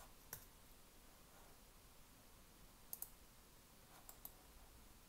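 Faint clicks of a computer mouse over near silence: a single click just after the start, a quick pair about three seconds in and another pair about a second later.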